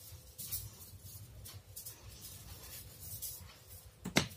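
Felt-tip marker strokes rubbing faintly on paper as a dotted number is traced over, with a sharp tap about four seconds in.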